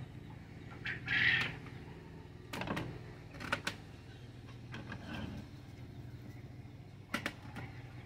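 Chickens or quail clucking and calling from the pens, the loudest call about a second in. A few sharp snips of shears cutting through quail wings and feet come at about two and a half, three and a half and seven seconds, over a steady low hum.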